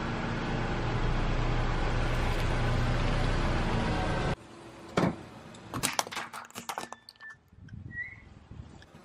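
Car close by running, with steady engine and tyre noise on wet concrete, which cuts off suddenly about four seconds in. Several sharp clicks and cracks follow.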